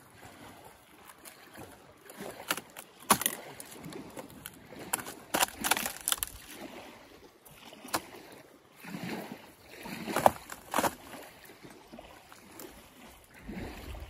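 Rotten punk wood of a dead conifer trunk cracking and snapping as it is pried apart by hand: a series of sharp cracks scattered over several seconds, the loudest about three seconds in and about ten seconds in.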